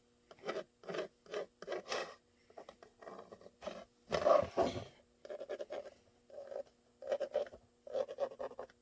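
Short scratchy strokes of a marker being drawn over a pressed kydex holster shell to mark out the cut line, a few strokes a second with a louder run about four seconds in. A faint steady hum runs underneath.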